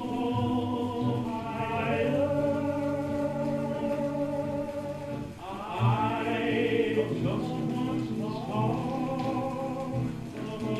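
Music of layered voices holding long sustained notes, like a choir. About halfway through the sound dips briefly, then a new phrase swells in with rising notes.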